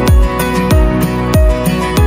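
Background instrumental music with a steady beat, about three beats in two seconds, under sustained notes.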